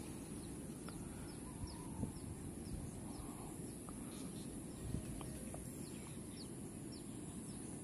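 Quiet outdoor ambience: a steady low rumble of wind on the microphone, faint short high chirps of birds scattered throughout, and two soft knocks, about two and five seconds in.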